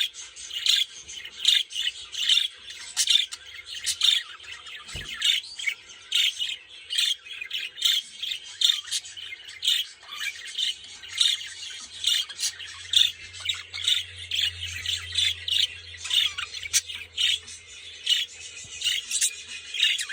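Budgerigars chattering and squawking: a busy, unbroken run of short high chirps, several a second.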